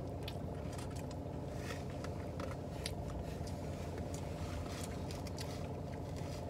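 Steady low hum of a car idling, heard from inside the cabin, with faint wet chewing and smacking clicks from someone eating a falafel sandwich and a brief handling of a foam takeout container.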